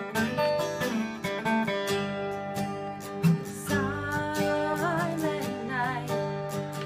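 Acoustic guitars playing picked and strummed chords; a little over halfway through, a woman's voice begins singing over them.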